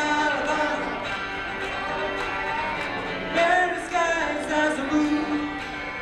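Live amplified music: a man singing into a microphone while playing an electric guitar.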